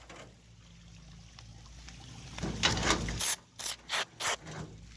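Can of expanding spray foam being dispensed: a soft rushing hiss about halfway, then four short sputtering spurts in quick succession near the end.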